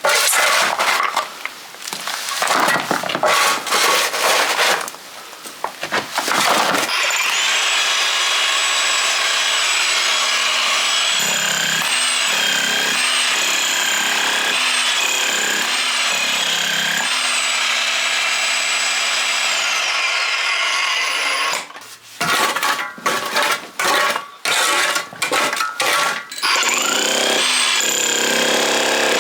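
Electric demolition hammer breaking up a floor: short stop-start bursts of hammering, then steady continuous running for about fifteen seconds from around seven seconds in, then short bursts again near the end.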